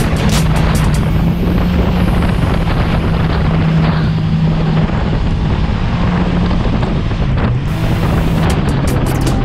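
Jet boat running on the water, a steady engine drone under heavy wind buffeting the microphone, with a brief dip in engine pitch about seven seconds in.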